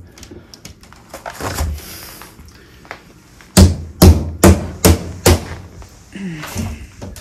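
A flat screwdriver prying at the metal tabs and edge banding of a plywood shipping crate: light clicks and scrapes, then five sharp knocks in quick succession a little past halfway.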